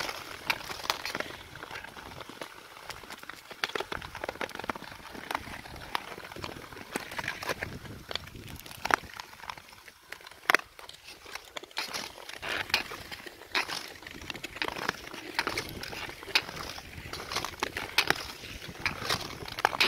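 Long-distance skates on thin clear lake ice: blades scraping and gliding, with many sharp cracks and clicks from the ice, the loudest about halfway through.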